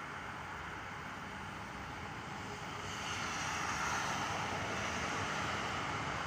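Electric locomotive approaching on the track, a steady running noise that grows louder about three seconds in.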